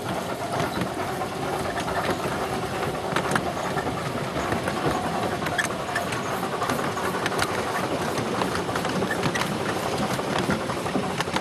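Miniature railway passenger train running along its track, heard from aboard an open carriage: a steady rumble with many scattered clicks and clanks from the wheels and couplings.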